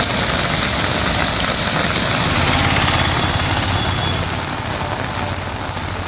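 Heavy rain pouring steadily, with the low hum of a vehicle engine running underneath, loudest a few seconds in.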